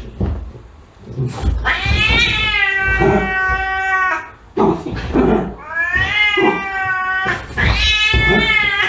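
Domestic cat yowling: several long, drawn-out meows whose pitch wavers, with short pauses between them.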